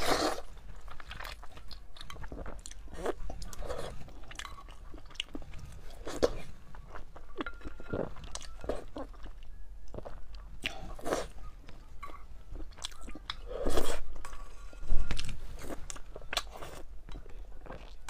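Slurping and chewing of hot and sour sweet-potato glass noodles: many short wet mouth clicks and smacks, with two louder bursts about fourteen and fifteen seconds in.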